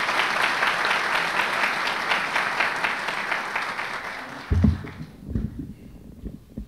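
Audience applauding, fading out about five seconds in, followed by a few low thumps.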